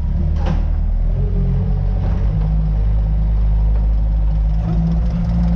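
Zetor 7245 tractor engine running steadily under load, heard from inside the cab as the tractor pushes manure. A short clank about half a second in.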